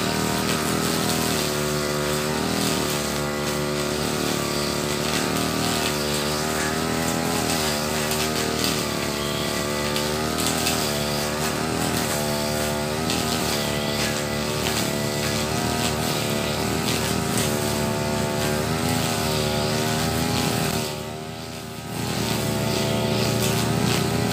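Backpack brush cutter's small engine running hard while cutting dense grass, its pitch rising and falling every second or two. About 21 seconds in it drops briefly toward idle, then revs back up.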